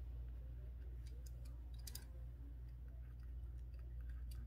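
Pen writing on a paper planner sheet: faint scratching and light ticks of the pen tip, over a steady low hum.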